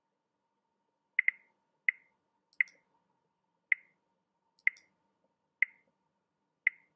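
Short, sharp clicks from someone clicking through a web page, roughly one a second, starting with a quick double click.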